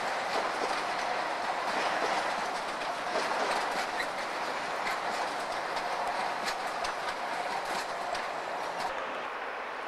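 Enclosed car-carrier freight wagons rolling past, their wheels clicking over the rail joints. The sound eases a little near the end as the last wagons go by.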